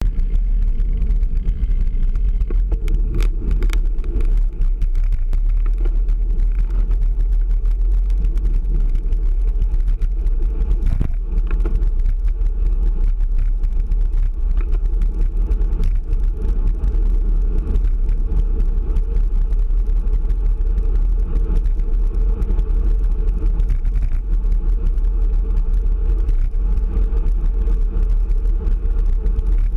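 Steady low wind rumble on a handlebar-mounted action camera's microphone as a road bicycle rides at speed, with road noise and a few brief knocks.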